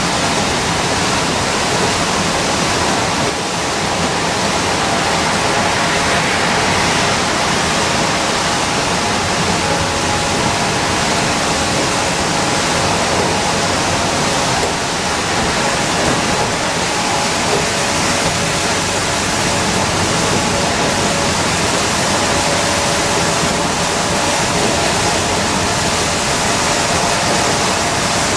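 Steady road noise inside an Orion V transit bus cruising on a wet highway: tyre hiss on wet pavement and engine noise, with a faint steady whine.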